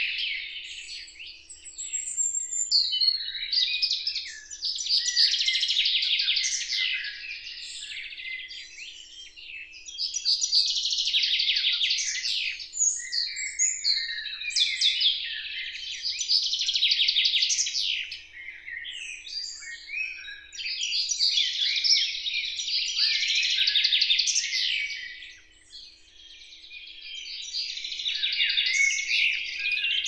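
Songbirds singing: bursts of high, rapid twittering song a few seconds long, with short pauses between, over a faint steady hum.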